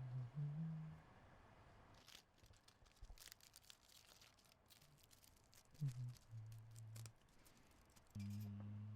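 Faint, irregular crackling and crinkling, like paper or plastic being crumpled, from about two seconds in until near the end. A low steady hum comes and goes under it, briefly at the start, again around six seconds, and again near the end.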